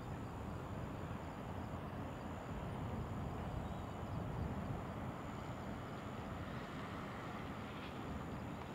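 Steady low outdoor rumble of background ambience, with a faint thin high-pitched whine over it.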